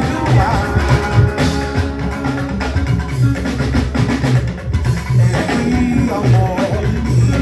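Music with a drum kit keeping a steady beat under repeating bass notes and pitched instrument lines.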